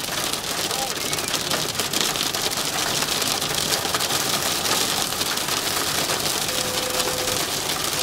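Heavy rain and hail drumming on a car's roof and windshield, heard from inside the car as a steady dense patter of countless small hits.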